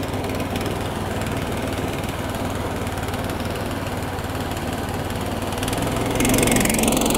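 SNOWDOG Sport B13 MER motorized track sled's small gasoline engine running steadily as the sled drives forward over a lawn, getting a little louder near the end.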